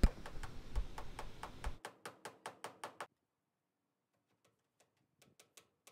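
Hammer tapping 3/4-inch poultry staples through welded wire into a wooden coop baseboard: a quick run of light taps, several a second, for about three seconds, then a pause, then a few fainter taps near the end.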